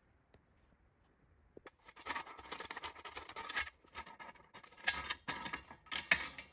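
Metallic clicking and clinking from the lid clamps and wing nuts of a California Air Tools 2.5 gallon pressure pot as they are handled and loosened. A rapid, uneven run of clicks and clanks that starts about two seconds in.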